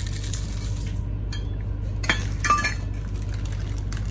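Stainless steel measuring cups clinking against a stainless steel mixing bowl as chocolate chips are tipped in: a rattle during the first second, then a few sharp metal clinks about two to two and a half seconds in, one of them ringing briefly.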